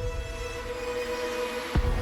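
Electronic music with sustained held tones and a deep bass thump near the end.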